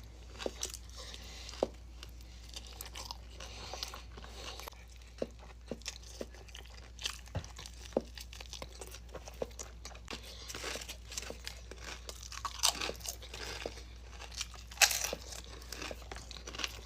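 A person chewing and biting crunchy food, with irregular crisp crunches that come thicker in the second half.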